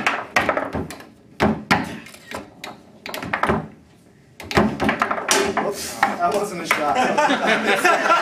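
Foosball being played: quick sharp knocks and clacks of the ball striking the rod men and of rods hitting the table, a dozen or so in the first few seconds. About halfway through, men's voices and laughter take over.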